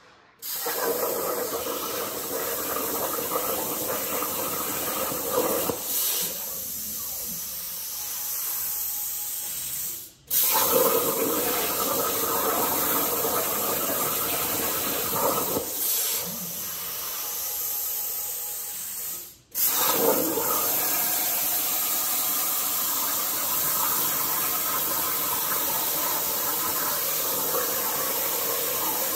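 CNC plasma torch cutting metal plate: a loud, steady hiss of the arc and its air jet. It breaks off briefly twice and starts again at once.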